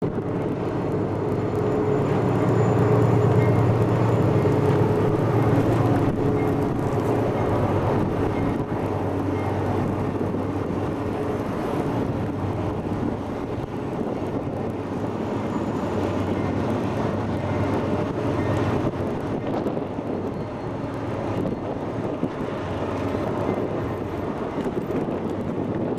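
Diesel freight locomotives running, a steady engine drone that is loudest a few seconds in and then eases off slightly.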